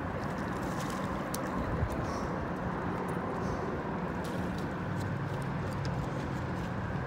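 A steady low engine drone with a constant rushing background and a few faint ticks.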